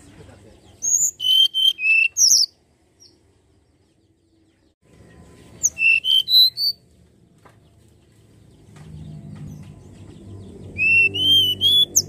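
Hill blue flycatcher (tledekan gunung) singing. It gives three short phrases, each a quick run of high, sliding whistled notes, about five seconds apart.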